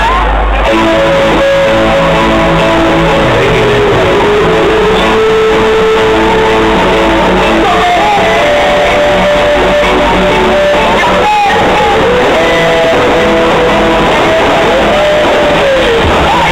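Loud music led by a guitar melody, with held notes and several sliding notes, playing as the soundtrack of a pyromusical fireworks show.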